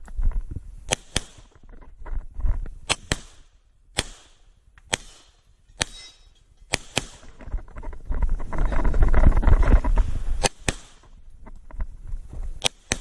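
CZ 75 Tactical Sport pistol being fired during an IPSC stage: sharp shots, many of them quick double taps about a fifth of a second apart, coming in groups a second or two apart. A stretch of rumbling noise runs for about two seconds from roughly eight seconds in.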